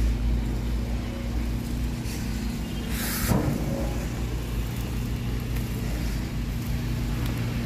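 A motor running steadily with a low hum and rumble, and a short hiss about three seconds in.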